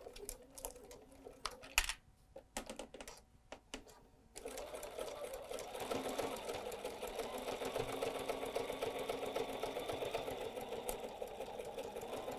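Electric sewing machine zigzag-stitching the binding of a quilted fabric rug. For the first four seconds or so it stops and starts with a few clicks, then it runs steadily at speed.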